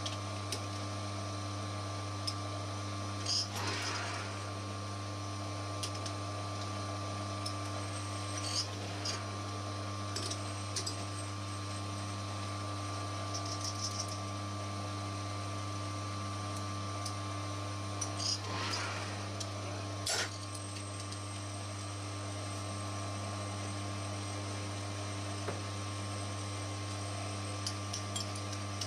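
Small metal lathe running with a steady motor hum, with a few short metallic scrapes and clicks as a threaded steel bolt in the chuck is worked; a sharper click comes about twenty seconds in.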